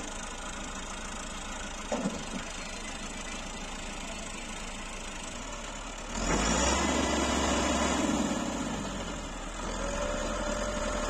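Massey Ferguson 385 tractor's diesel engine running steadily, then much louder from about six seconds in as it works hard pulling a loaded soil trolley up a canal bank.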